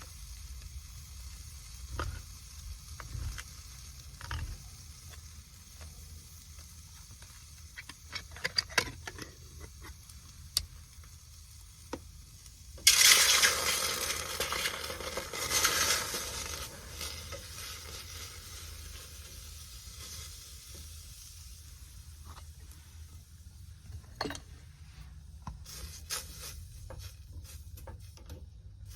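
Chopped onions hitting a hot pot and sizzling. The sizzle starts suddenly about halfway through, swells again, then fades, with light clicks and knocks of a utensil against the pot before and after.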